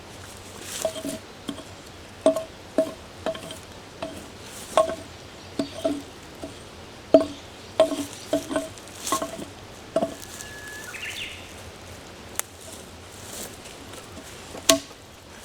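Irregular knocks of wood being struck with a tool, about one or two a second, each with a short ringing note. About ten seconds in, a short rising whistle sounds once.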